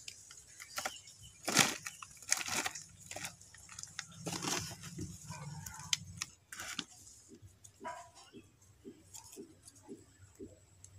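Hands scooping potting soil from a woven plastic sack and dropping it into a small plastic cup: scattered, irregular crunching and rustling.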